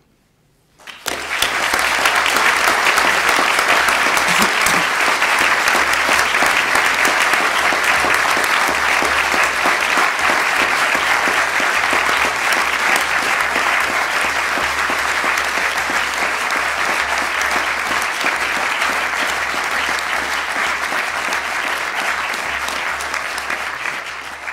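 A large audience applauding. The clapping starts about a second in, holds steady for over twenty seconds, and tapers off near the end.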